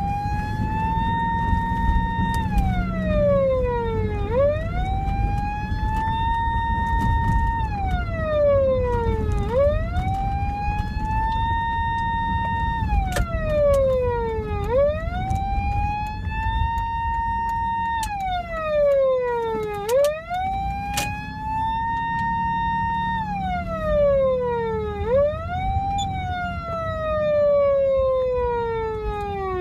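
SAP-500 siren amplifier sounding a police wail. Each cycle rises to a high held tone, holds for about a second and a half, then falls, repeating about every five seconds. Its DIP switch is set for a slightly higher top tone.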